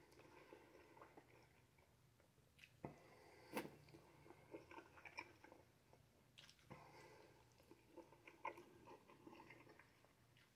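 Faint wet chewing and mouth sounds of a person eating syrup-soaked sausage, broken by a few sharp clicks. The loudest click comes about three and a half seconds in.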